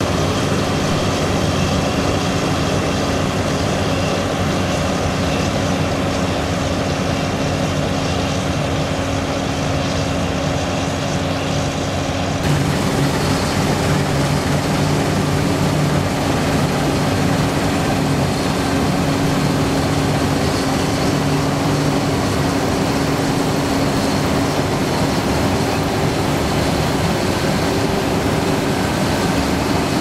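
Massey Ferguson Cerea combine harvester running steadily under load while harvesting barley: an engine hum with its machinery and a broad hiss of crop and chaff. The sound changes abruptly about twelve seconds in.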